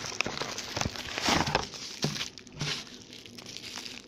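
Packaging being handled: a box being opened and bubble wrap crinkling, an uneven rustle with a louder burst about a second and a half in.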